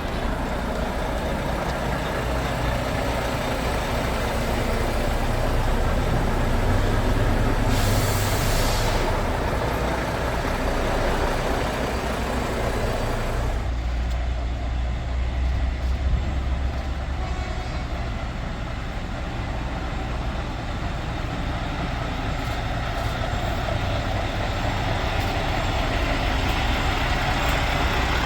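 Heavy trucks' diesel engines running as the trucks move through, with a short air-brake hiss about eight seconds in. The engine sound changes abruptly about halfway through.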